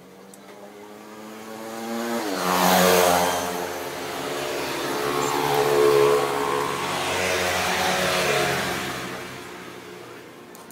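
A motor vehicle's engine running and passing: a steady hum that changes pitch about two seconds in, grows loud with rising and falling revs, and fades away near the end.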